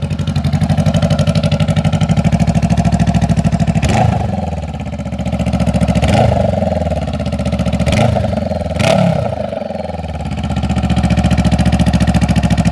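Honda CB500X's 471 cc parallel-twin engine running loud with its silencer removed, exhausting straight out of the open header pipe. It idles, is blipped four times in the middle, with the revs rising and falling each time, then settles back to idle.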